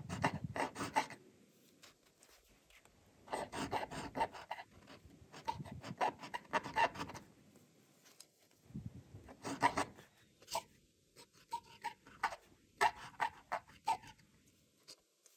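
Graf von Faber-Castell Classic fountain pen's nib scratching across paper as it writes, in several bursts of quick strokes with short pauses between letters and words.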